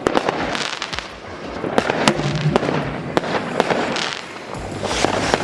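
Dense New Year's Eve fireworks going off all around: a rapid, irregular string of bangs over continuous crackling.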